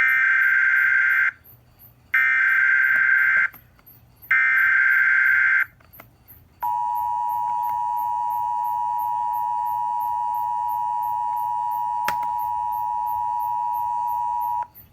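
Emergency Alert System SAME header: three bursts of shrill, buzzy digital data tones, each a little over a second long, encoding a tornado warning. They are followed by the EAS attention signal, a steady two-tone beep held for about eight seconds that cuts off sharply.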